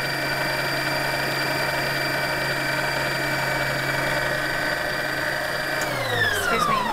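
Electric stand mixer whisking egg whites at high speed, its motor running with a steady whine. About six seconds in it is switched off, and the whine falls in pitch as the motor winds down.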